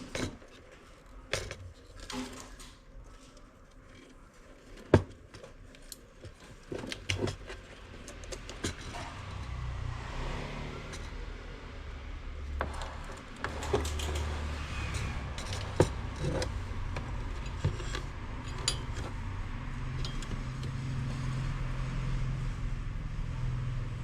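Scattered light clicks and metallic clinks of tools and parts being handled, the sharpest at about five seconds in, over a low hum that grows from about eight seconds in.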